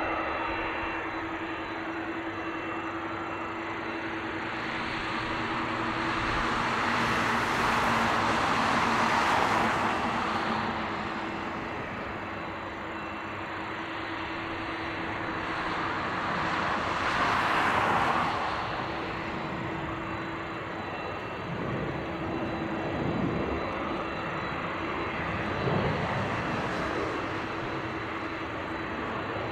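Jet airliner engines running at low power while taxiing: a steady hum under a rushing noise that swells twice, once about eight seconds in and again around seventeen seconds, then eases off.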